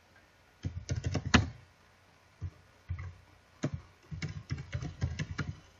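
Computer keyboard being typed on. A short run of keystrokes comes about a second in, then a few single key presses, then a quicker run of keystrokes in the second half.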